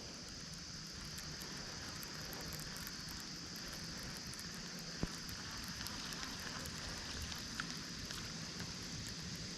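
Steady high-pitched chirring of insects such as crickets, with a faint crackly background and a single sharp click about five seconds in.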